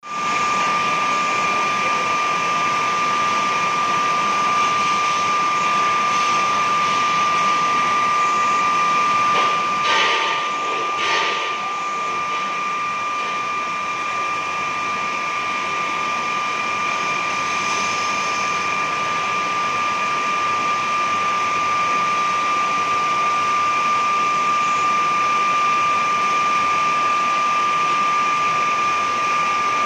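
CNC glass-grinding machine cutting a V-groove into a mirror's glass face, a steady high whine over a hiss. Two brief louder scrapes come about ten and eleven seconds in.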